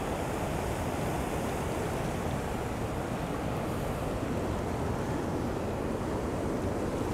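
Steady rush of fast-flowing river water from rapids below a waterfall, an even unbroken noise with no distinct events.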